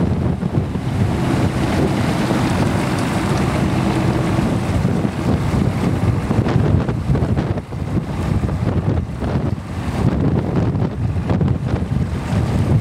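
Wind buffeting the microphone in a steady, loud rush, over choppy water and the wake of a Sea Ray 280 Sundancer cabin cruiser motoring past, its engines faintly audible beneath.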